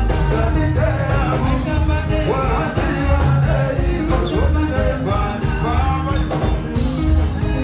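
Live band playing: a male lead singer sings over electric guitar, keyboard, bass and drums, with a strong, steady bass and drum beat.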